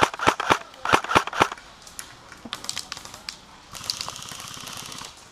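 Airsoft rifle firing a rapid string of single shots, about half a dozen sharp cracks in the first second and a half, then fainter scattered shots further off. A steady hiss follows near the end.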